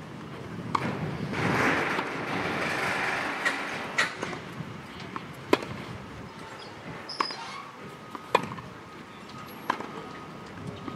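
Tennis rally on a clay court: sharp pops of racket strings hitting the ball and the ball bouncing, about one every one to one and a half seconds. A rushing noise swells and fades in the first few seconds.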